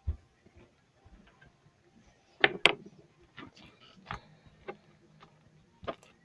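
Scattered sharp clicks and taps from small objects being handled, the loudest a quick pair about two and a half seconds in, with single taps near four and six seconds.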